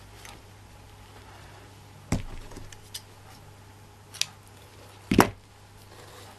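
Hand tools and craft bits knocking and clicking against a tabletop: four sharp knocks, the loudest about two seconds in and just after five seconds.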